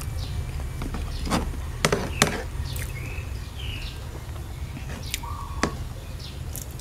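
A metal spoon stirring and scooping through a tray of wet spicy salad, with a few sharp clinks and scrapes as it knocks against the tray.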